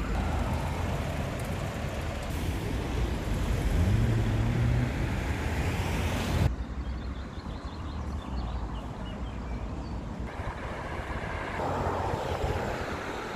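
Road traffic: a steady wash of car noise, with one vehicle engine rising slightly in pitch about four seconds in. The sound cuts off abruptly about halfway through to a quieter street ambience.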